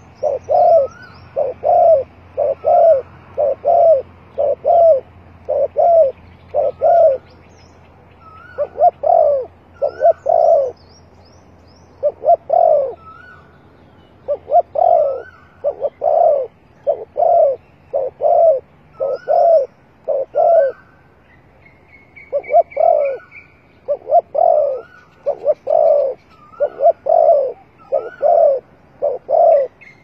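Spotted dove cooing over and over, loud and close: runs of deep coo phrases, several a second, broken by short pauses. Faint chirps of small birds behind, and a brief rising whistle a little past the middle.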